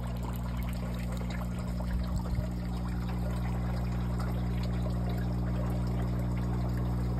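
Water pouring and trickling in an aquaponics sand grow bed, over a steady low hum.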